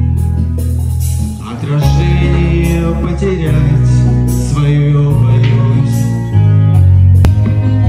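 A man singing into a handheld microphone over a loud amplified backing track, as in karaoke.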